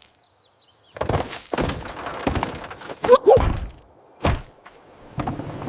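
A run of heavy thunks and thuds. A short pitched cry comes about three seconds in, and another sharp thud follows a second later.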